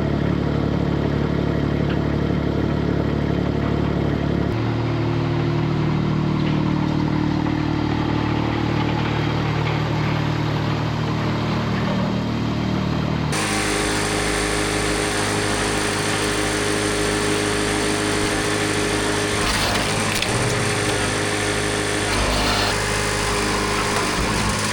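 An engine running steadily. Its pitch steps to a new level about four seconds in, and about thirteen seconds in it gives way abruptly to a different, brighter engine sound.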